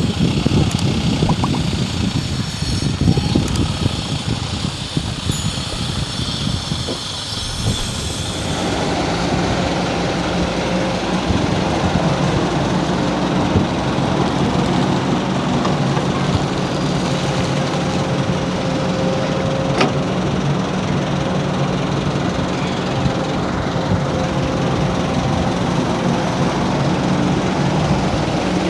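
Diesel engine of heavy construction machinery running. It is uneven and rumbling at first, then about eight seconds in it changes abruptly to a steady engine drone.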